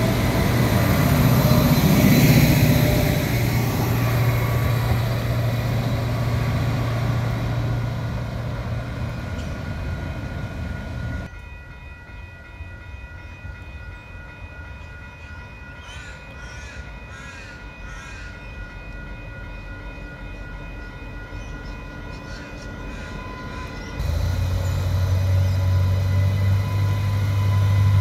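Adelaide Metro 3000-class diesel railcar passing close, its low engine drone and wheel noise fading over about ten seconds. Then a quieter stretch with a few bird calls while a railcar approaches in the distance. Near the end a 3000-class hybrid railcar passes close with a loud low hum.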